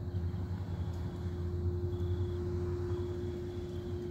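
Steady industrial machinery drone from the Casting Solutions plant: a strong low hum with a constant higher tone above it and a faint high whine that comes and goes. The uploader takes the noise for failing equipment.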